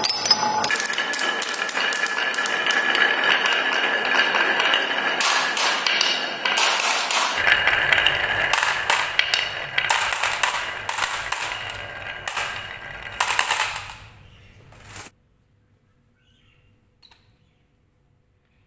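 Many marbles rolling and clattering down a wooden marble run and dropping off a wooden chute into a plastic toy dump truck's bed, a dense run of clicks as they knock against the track and one another. The clicks thin to a few separate hits and stop about fifteen seconds in.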